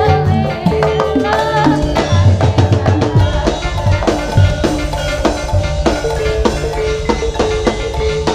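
Live jaranan accompaniment: Javanese gamelan-style percussion with dense, fast drumming, a steady held pitched tone and a wavering melody line that fades after the first couple of seconds.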